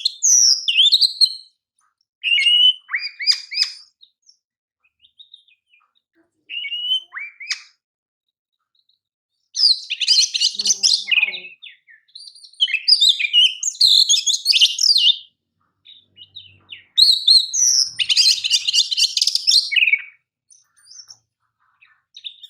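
Oriental magpie-robin (kacer) singing in about six loud phrases of quick whistles and very fast buzzy trills, with pauses of a second or two between them.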